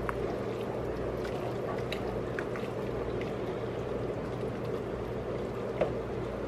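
A white plastic spoon stirring a pot of cabbage soup: a steady wet sloshing of cabbage and broth, with a few faint clicks of the spoon against the pot.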